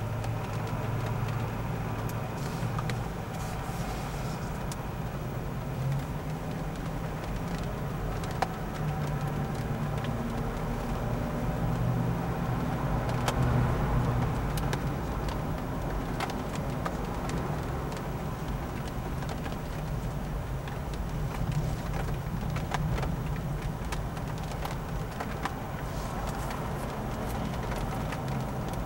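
Steady low hum of a car engine and road traffic, heard from inside a car, swelling briefly about 13 seconds in, with scattered faint ticks.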